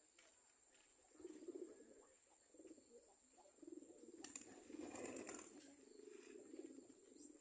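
Domestic pigeons cooing faintly in repeated low, throbbing phrases, busiest a little past halfway.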